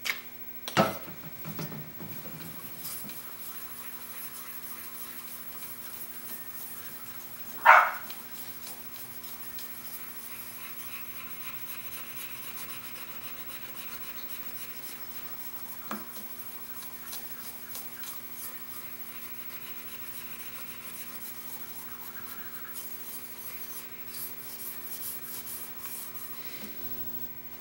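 Steel plane iron rubbed back and forth flat on a fine diamond sharpening plate wet with Simple Green and water: a steady, quiet scraping of steel on diamond grit as the blade's back is flattened. A single brief, louder noise about eight seconds in.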